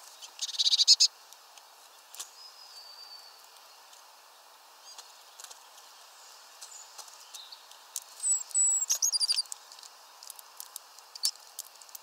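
Small songbirds calling at a peanut feeder. A fast, loud rattling call comes about half a second in, then a thin high whistle, and a burst of very high notes sliding downward a little past the middle. Scattered light ticks run between the calls.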